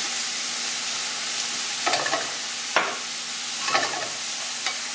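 Soy sauce sizzling hard in a very hot uncoated metal pan of diced potatoes as it boils off to deglaze the browned bits. A utensil stirring scrapes and knocks against the pan about four times.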